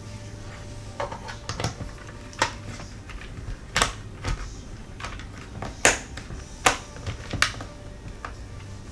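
Sharp, irregular clicks and taps, about eight over several seconds, from a screwdriver and the plastic parts of an Extech 411 multimeter being handled during reassembly. A steady low hum runs underneath.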